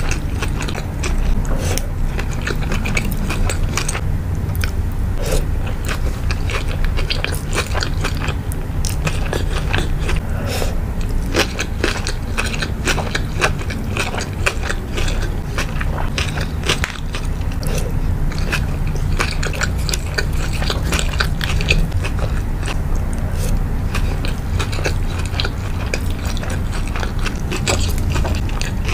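Close-miked chewing of sushi rolls: many irregular crunchy bites and small wet crackles of cucumber maki and crab-topped rolls being chewed, over a steady low rumble.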